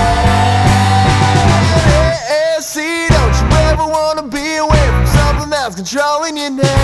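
Rock song playing: a male voice singing over electric guitar, bass and drums.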